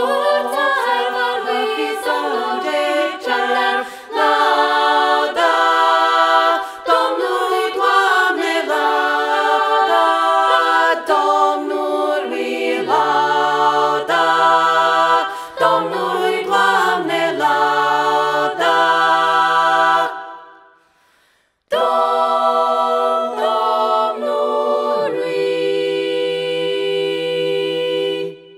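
Women's a cappella vocal ensemble singing a Transylvanian Romanian winter carol (colindă) in close harmony, in short chordal phrases. About twenty seconds in, the voices stop for a moment, then come back in and hold a final chord that cuts off near the end.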